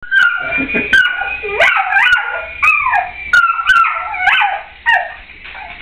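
A dog barking excitedly in rapid, high-pitched yelps, about two a second, each falling in pitch, fading out near the end.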